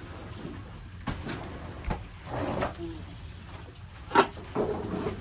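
A few scattered knocks and clatters, with one sharp knock about four seconds in, over a steady low background noise.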